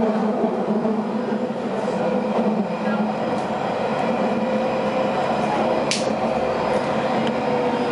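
Tram heard from inside the passenger car while running: a steady rumble with a constant electric whine, and one sharp click about six seconds in.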